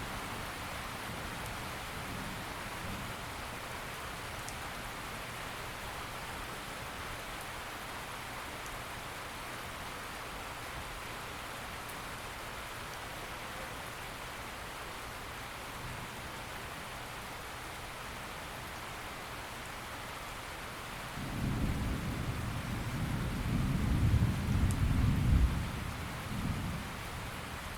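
Steady rain falling, with a long low rumble of thunder rolling in about three-quarters of the way through.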